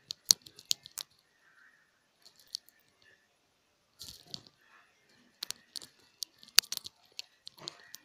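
Irregular sharp little clicks and soft rustling, clustered in the first second, sparse for a few seconds, then picking up again about halfway through.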